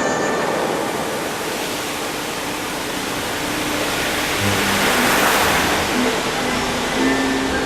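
Fountain water jets spraying and falling back into the pool: a steady rushing hiss that swells about five seconds in. Faint held music notes come in around the middle.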